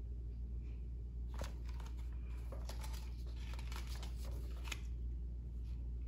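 A picture book's pages being handled and turned: a few soft paper rustles and taps over a steady low hum.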